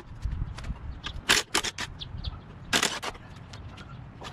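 Cordless drill-driver run in a few short bursts, backing out the bolts that hold the engine shroud over the recoil starter of a Briggs & Stratton Quantum mower engine.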